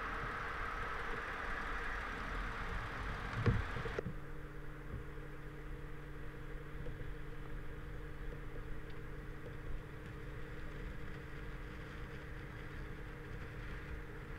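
A steady hiss gives way abruptly about four seconds in to a low, even engine hum, like a vehicle idling; a single knock sounds just before the change.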